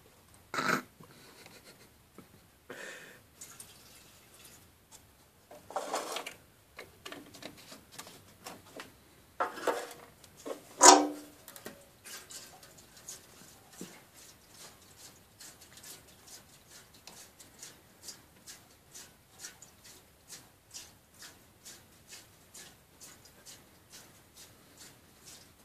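Petrol sloshing and splashing inside a small motorcycle fuel tank as it is shaken in a steady rhythm, about twice a second. Before that come scattered handling clatters, with one sharp knock about eleven seconds in.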